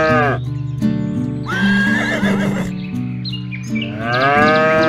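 Background music with farm-animal calls laid over it: a long call that rises and falls right at the start, a wavering higher call about two seconds in, and the first call again near the end.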